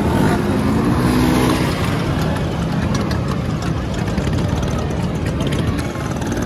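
Several scooter engines running together as a group of Vespa-style scooters rides along in a bunch, making a steady low engine drone.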